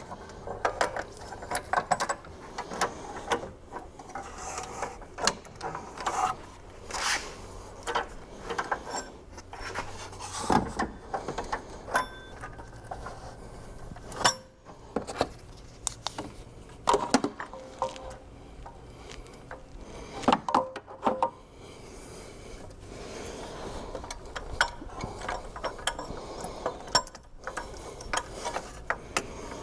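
Hand tools and metal parts clicking, knocking and scraping as a new serpentine belt tensioner is fitted into the engine bay. The clicks come irregularly, with a few sharper knocks among them.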